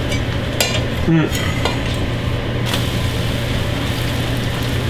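A thin crepe frying in a hot frying pan, sizzling steadily, with a few short scrapes and clicks of a knife against the pan. A steady low hum runs underneath.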